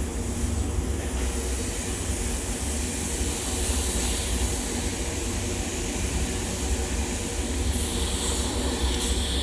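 TIG welding on pipe: a steady low electrical hum with an even hiss over it, running without a break.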